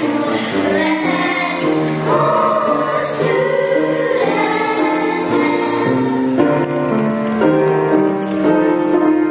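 A choir of women's and children's voices singing a Christmas song, a melody in held notes.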